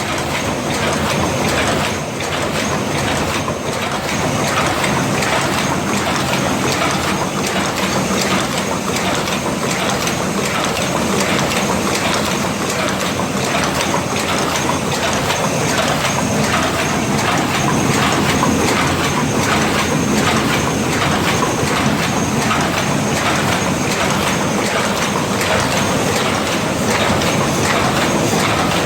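Paper cup forming machine running, a steady mechanical clatter of rapid, evenly repeated strokes.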